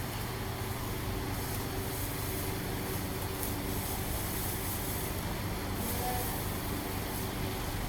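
A steady mechanical drone, like a motor or engine running, with an unchanging low hum throughout. About six seconds in there is a faint, brief falling call.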